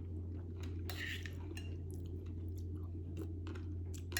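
A person chewing a mouthful of fresh fruit and coconut, with scattered soft wet clicks over a steady low hum.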